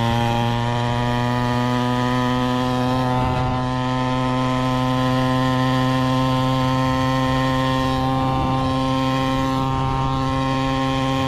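Gas pocket bike's small engine running at steady throttle while riding, holding one unwavering pitch. Its muffler is loose after one of its bolts came out.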